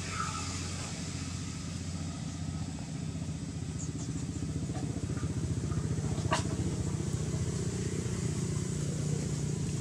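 A motor vehicle's engine running steadily as a low rumble, growing slightly louder, with a brief high squeak about six seconds in.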